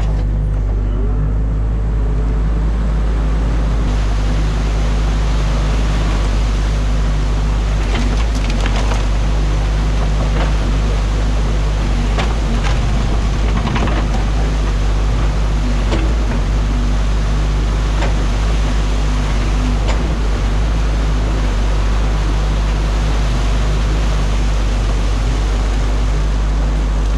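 Excavator diesel engine running steadily under the cab, with water rushing through the breached beaver dam. A few sharp cracks and knocks of branches and bucket come about a third to halfway through.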